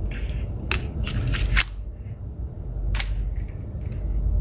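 About four sharp clicks and taps from hands handling the Arduino board and breadboard wiring, two of them louder than the rest, over a steady low hum.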